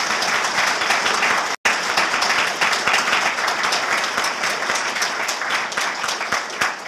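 Audience applauding: a dense, steady patter of many hands clapping, with a split-second break about a second and a half in.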